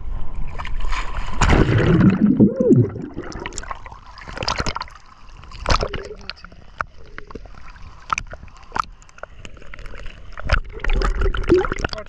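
Seawater sloshing and splashing around a camera held at the surface, with many sharp drips and splashes striking it. A short louder sound that rises and falls in pitch comes about two seconds in.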